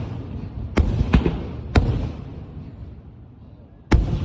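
Aerial fireworks bursting: three sharp bangs in the first two seconds, two of them close together, and a fourth near the end, each trailing off in a rumbling echo.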